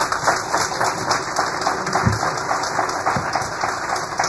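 Audience applauding steadily, many hands clapping together, with a dull thump about two seconds in.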